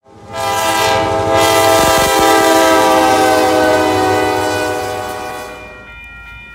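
MBTA commuter rail locomotive horn sounding one long multi-note blast, which fades away after about five seconds. As it fades, a grade-crossing warning bell can be heard ringing about three times a second.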